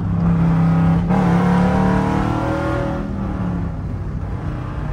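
Catalytic-converter-deleted 5.7 L Hemi V8 of a Jeep Grand Cherokee Summit under way, its exhaust droning loudly as heard from inside the cabin. There is a short break in the note about a second in, and it grows quieter after about three seconds.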